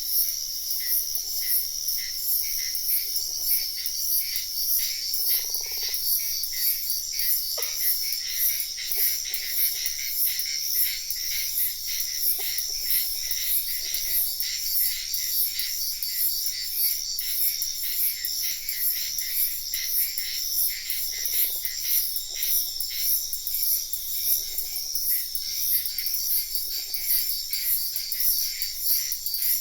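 Forest ambience: a dense, high-pitched insect chorus pulsing rapidly and evenly, with short, lower frog croaks breaking in every few seconds.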